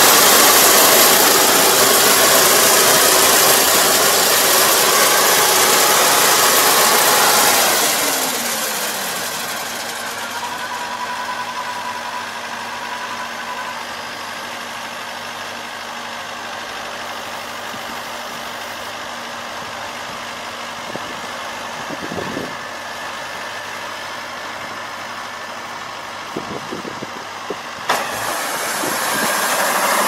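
Kubota ER470 combine harvester's diesel engine running loudly. About eight seconds in it drops with a falling pitch to a lower, steady run, and it picks up again near the end after a sharp click.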